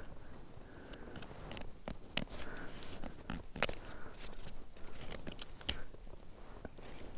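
Irregular small scrapes, clicks and crunches of a knife cutting at a hard, icy chunk set in packed snow.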